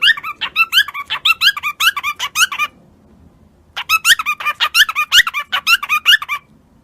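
A parrot giving rapid, evenly repeated squeaky chirps, about four a second, in two runs separated by a pause of about a second.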